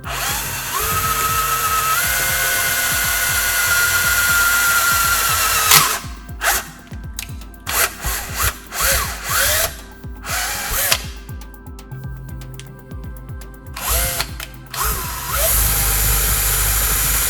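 A small electric motor whining at speed, stepping up in pitch over the first few seconds. About six seconds in it breaks into short start-stop bursts whose pitch rises and falls, then runs steadily again near the end.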